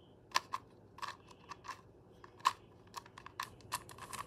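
A dozen or so irregular sharp plastic clicks and snaps from a GAN 249 V2 2x2 speedcube being twisted and pulled apart by hand, its pieces knocking and popping against each other.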